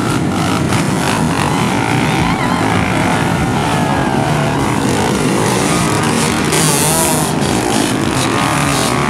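A pack of motocross dirt bikes running together under hard throttle, their engines revving up and down in pitch as they pull away and ride through mud.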